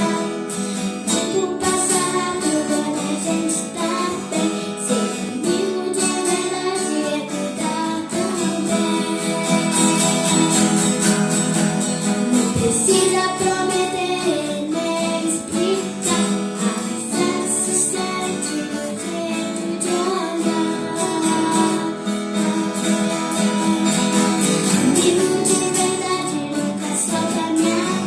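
Acoustic guitar strummed as accompaniment to a female voice singing a song.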